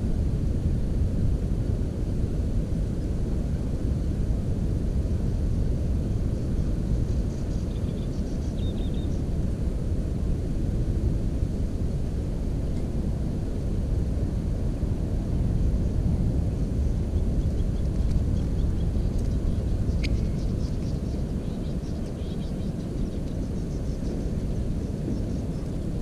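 Steady low rumble throughout, with a few faint, brief high bird chirps about seven to nine seconds in and again scattered through the last third.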